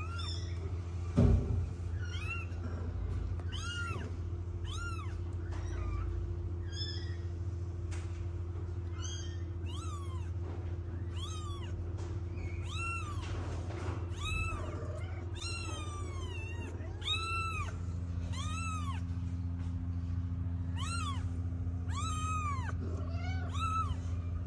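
Kitten mewing over and over: short, high-pitched mews about once a second, coming thicker in the second half, over a steady low hum. A short knock about a second in.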